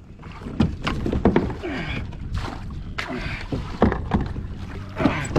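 Repeated knocks and clatter of gear and hands against a fishing kayak's hull as the angler scrambles with a hooked fish and a dropped rod, with a few brief vocal sounds between them.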